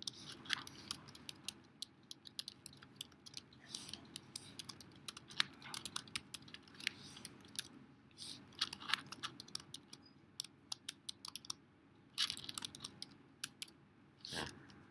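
Typing on a computer keyboard: a quick, irregular run of key clicks with short pauses, and one louder click near the end.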